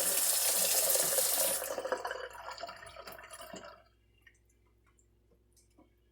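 Water running from a tap, shut off a little over a second in, followed by trickling and drips that die away within a couple of seconds.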